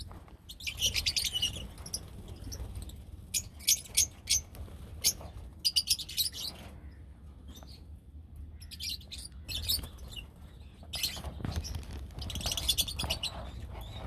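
A flock of rosy-faced (peach-faced) lovebirds chirping in repeated short bursts of high-pitched chatter, with pauses between the bursts, over a low steady hum.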